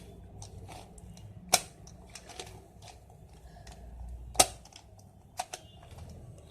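Plastic Rubik's cube pieces clicking as the cube is reassembled by hand: scattered sharp clicks, the two loudest about a second and a half in and past the middle, with fainter ticks between.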